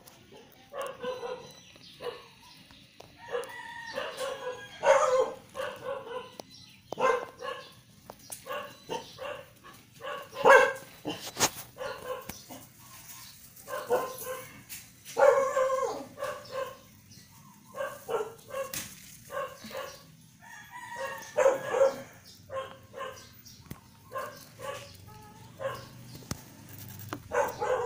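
A dog barking repeatedly in short bursts, on and off throughout.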